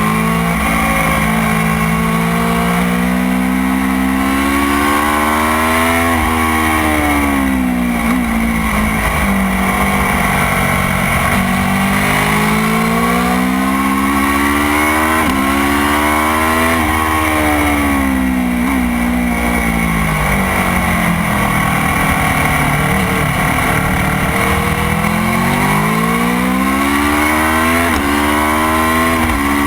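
Motorcycle engine at track speed, its pitch climbing hard through the gears with a sudden drop at each upshift, then sweeping down as it slows for corners and climbing again, several times over.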